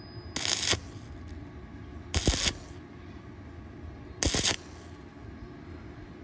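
Stick welding arc on a thin-walled round steel pipe, struck in three short bursts about two seconds apart, each lasting under half a second. Between bursts the rod rests on the glowing puddle so the thin wall can cool, laying the weld down stitch by stitch.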